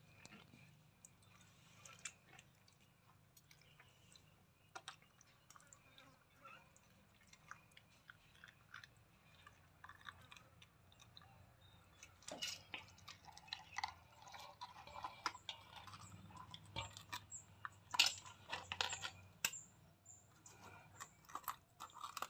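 Faint wet squelching and crackling of a murrel (snakehead) fish's head being torn open by hand to pull out its gills and innards. Scattered clicks grow more frequent and sharper in the second half.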